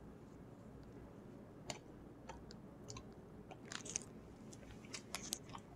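Faint chewing of a yakgwa, a dense honey-soaked Korean fried cookie: irregular soft mouth clicks.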